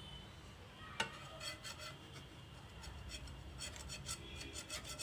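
Steel spatula stirring and scraping grated carrots in milk around a black iron kadhai. A sharp knock of the spatula on the pan about a second in, then runs of short scraping strokes.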